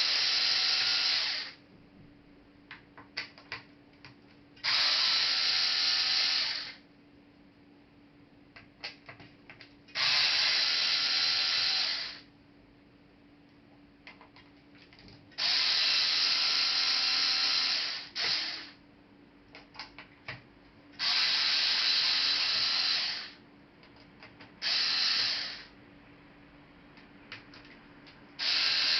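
Electric screwdriver running in repeated bursts of about two seconds, backing out laptop case screws, with light clicks of screws and small parts being handled in the gaps.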